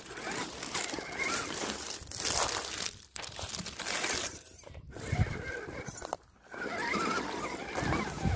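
RC crawler's electric motor and gear drivetrain whining in stop-start bursts as it climbs over rock, with the tyres scraping and crunching. Three times it cuts out briefly, then picks up again.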